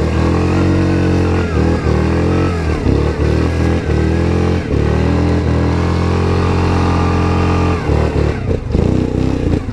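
Yamaha Grizzly 700 ATV's single-cylinder engine running under throttle off-road. Its note mostly holds steady, with small rises and falls and a few brief dips, and turns uneven near the end.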